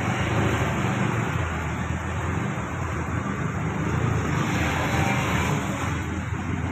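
Steady traffic noise from a jammed city road: cars and motorcycles idling and creeping forward in congestion, a continuous low rumble with no single event standing out.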